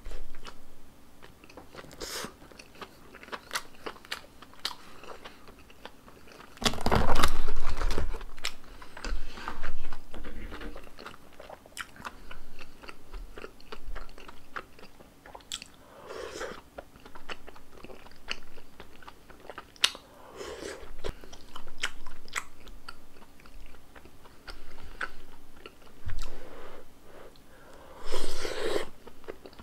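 Close-miked eating: crisp crunching bites and chewing of a Korean corn dog coated in fried potato cubes, the loudest crunch about seven seconds in. In the second half, wetter chewing of tteokbokki rice cakes in cheesy sauce.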